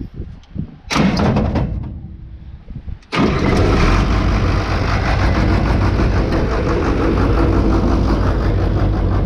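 Early International Harvester Axial-Flow combine's engine being started: a short first burst of cranking about a second in that dies away, then just after three seconds the engine catches and runs steadily and loudly.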